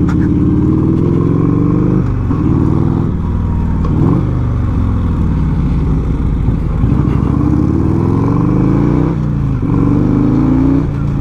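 1984 Harley-Davidson FLT Tour Glide's Evolution V-twin, breathing through a 2-into-1 header and SuperTrapp muffler, pulling under hard acceleration. Its pitch climbs and drops back about four times as it is shifted up through the gears.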